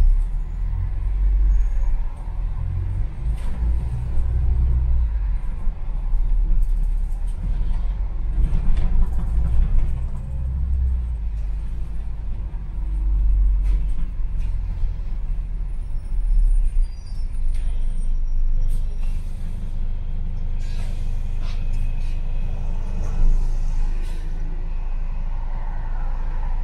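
London bus running through traffic, heard from inside the cabin: a deep engine and road rumble that swells and eases, with scattered rattles and clicks from the bodywork. About twenty seconds in comes a few seconds of hiss.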